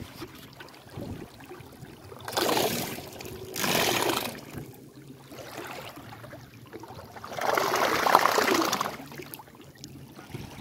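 Lake water splashing and trickling against a small boat, in two short surges a few seconds in and a longer one later.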